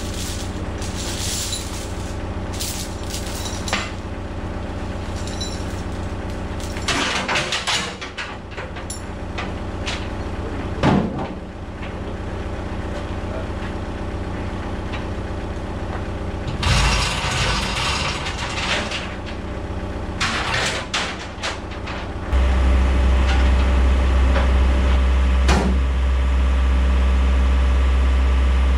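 Komatsu excavator's diesel engine idling, with metal chain clanking several times. About 22 seconds in the engine is throttled up and runs louder and steady.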